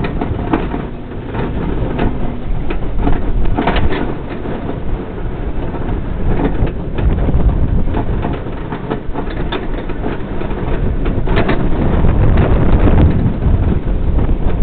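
Suspended roller coaster running along its steel track, a continuous rumble of the wheels with scattered clicks and clatters, mixed with wind rushing over the microphone.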